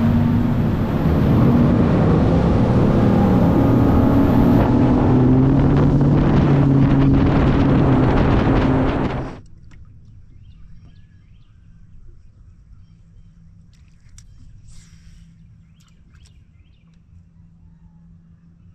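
Bass boat running at high speed on its Mercury 250 Pro XS outboard, with steady engine drone, wind and rushing water. About nine seconds in it cuts off abruptly to quiet water with a faint low hum and a few small ticks.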